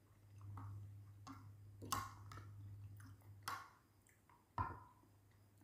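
Quiet eating sounds: chewing and a spoon scraping and clinking in a glass bowl of oatmeal and milk, with a few sharp clicks scattered through, the clearest about two seconds in and another near the end. A faint low hum sits underneath during the first half.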